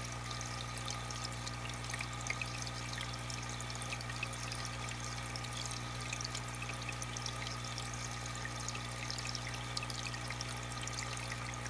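Aquarium water trickling and bubbling steadily, with many small splashes, over the constant low hum of the tank's filter or air pump.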